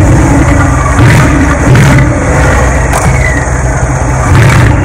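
Brabus 700 6x6's twin-turbo 5.5-litre V8 idling steadily through its side-exit twin exhaust, a low, even rumble.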